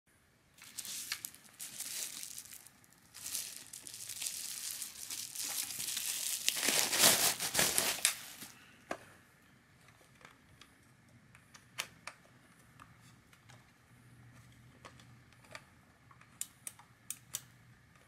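Plastic bubble wrap crinkling and rustling as it is pulled off a small battery-powered toy washing machine, loudest about seven seconds in. After that, a few sharp light clicks and taps as the hard plastic toy is handled.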